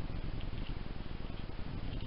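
Steady low hiss and rumble from a trail camera's microphone, with a few faint short high chirps scattered through it.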